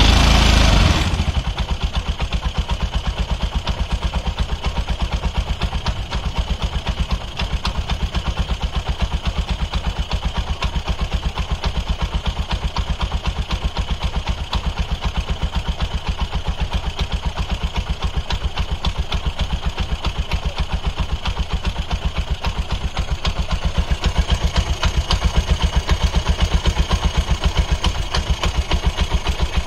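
Freshly rebuilt Bajaj RE auto-rickshaw single-cylinder four-stroke petrol engine running on its first start after reassembly. A brief loud rev in the first second settles into a steady idle with an even exhaust beat, which picks up slightly in the last few seconds.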